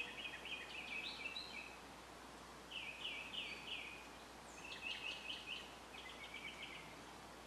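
Faint bird song: runs of three or four quick, falling chirps, repeated several times.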